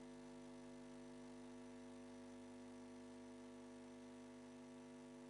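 Near silence with a faint steady electrical hum: one low pitch with its overtones, unchanging throughout.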